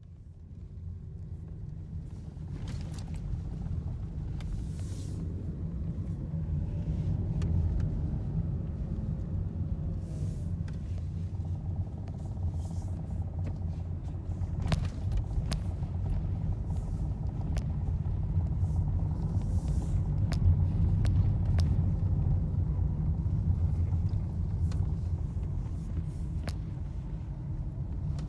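A steady low rumble with scattered clicks and knocks.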